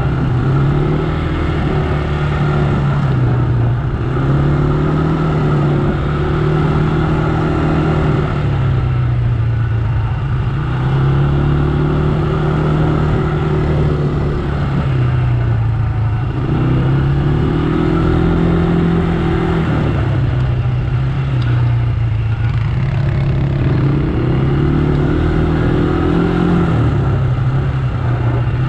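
ATV engine running while riding along a dirt trail. Its pitch rises and falls every few seconds as the throttle is opened and eased.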